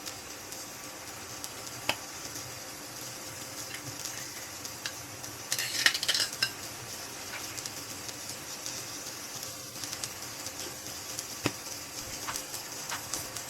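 Food frying in a pan with a steady sizzle, with a few sharp clinks of a utensil against the pan or dishes. A brief flurry of scraping and clinking comes about six seconds in.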